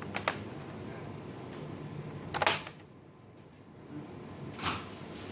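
Laptop parts and tools being handled on a workbench during disassembly. Two quick clicks come right at the start, a sharper knock about two and a half seconds in, and another near the end, over a steady low hum.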